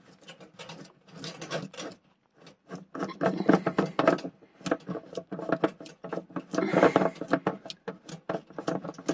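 Close-up handling of hard plastic: a run of quick, irregular clicks and rubbing scrapes as the screw cap on top of a diesel heater's fuel tank is worked loose and taken off, with a short pause about two seconds in.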